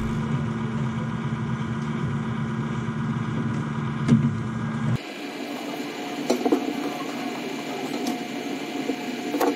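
Desktop PC's cooling fans running with a steady hum, which changes abruptly about halfway through, with a few light clicks later on.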